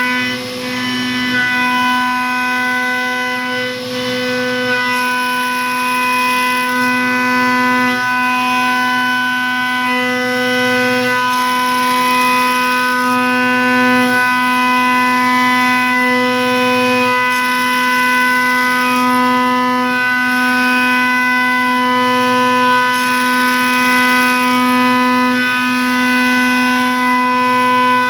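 Haas DM-2 machining centre high-speed milling steel with an endmill. The cut gives a loud, steady pitched whine with many overtones, its strength shifting every second or two as the tool moves along its path.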